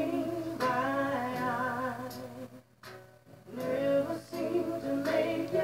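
A recorded song with a woman singing a slow, wavering melody, played in the background; the singing drops away briefly about halfway through, then comes back.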